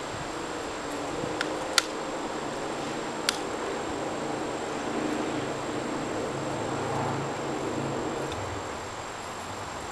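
Steady outdoor background with insects buzzing, and two sharp clicks about a second and a half apart near the start as a BB gun is worked by hand.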